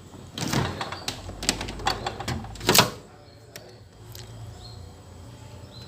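A quick run of sharp clicks and knocks from hard objects being handled, lasting about three seconds, with the loudest knock near the end of the run.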